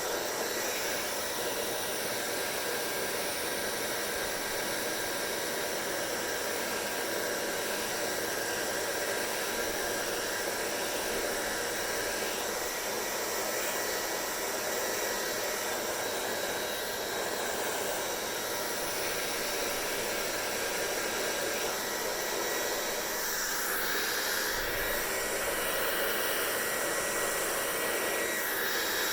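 Hair dryer running steadily: an even rushing airflow noise with a faint high motor whine.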